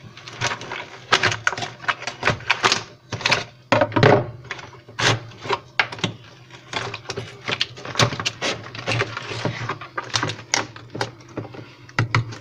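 Irregular clicks, taps and scrapes of a knife and hand chipping and prying a block of ice off the trough beneath a refrigerator's freezer evaporator coil. The ice buildup is blocking the cold air from circulating to the lower compartment.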